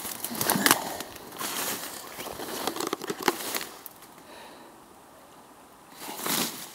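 Dry grass, twigs and brambles crackling and rustling as someone pushes through dense undergrowth on foot. The rustling dies down for a couple of seconds about four seconds in, then starts again near the end.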